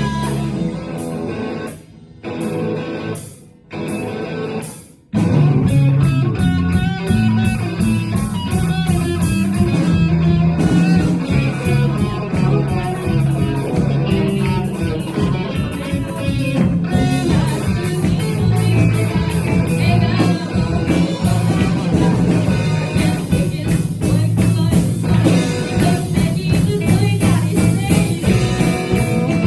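Live rock band playing: electric guitar, bass and drums with a singing voice. In the first few seconds the band plays short hits broken by brief stops, then comes back in at full strength about five seconds in.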